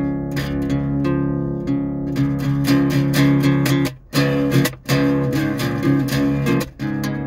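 Acoustic guitar strummed in a steady chord pattern, with the strings briefly muted to silence about four seconds in, again just before five seconds, and near the end.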